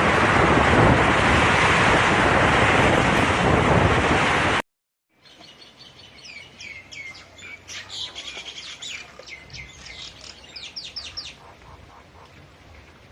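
Heavy wind and rain of a storm rushing loudly, with wind buffeting the microphone, which cuts off suddenly about four and a half seconds in. After a moment of silence, small birds chirp and twitter in quick, repeated sweeping calls over a faint background hiss.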